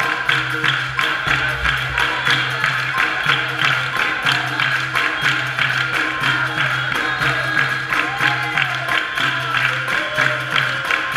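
Live capoeira roda music: berimbau and hand percussion keeping a steady rhythm, with the circle clapping along and voices singing.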